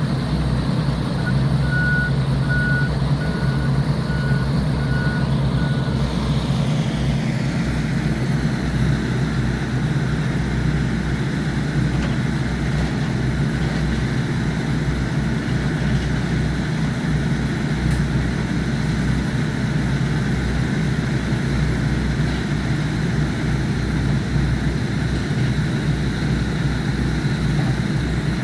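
Heavy diesel work vehicle running, with a reversing alarm beeping at a steady pace for about five seconds near the start. The engine note changes about seven seconds in and keeps running.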